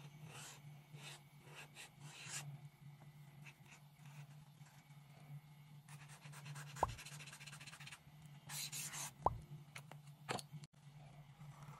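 Paint-marker nib scratching across paper in short strokes, with a flurry of quick strokes partway through and two brief sharp pops, over a faint steady low hum.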